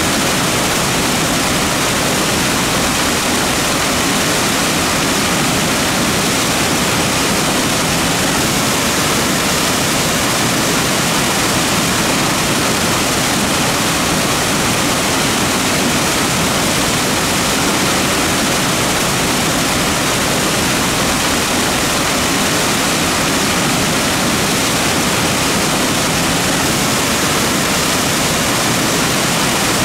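Mountain creek rushing over rocks: a loud, steady wash of water with no change.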